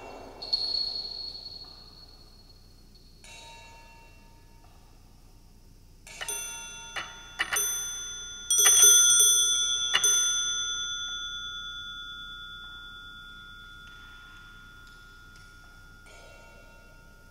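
A pair of metal dome bells on an antique wooden bell box, struck by a small clapper hanging on a wire: a single ding near the start, then a cluster of irregular strikes about halfway through, the last ring fading slowly over several seconds.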